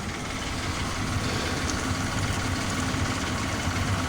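An engine idling steadily, a low, even rumble.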